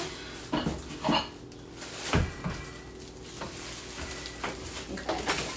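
Handling noise from a plastic-wrapped air fryer and its packaging being moved on a kitchen countertop: a few scattered knocks and rustles, the loudest knock about two seconds in.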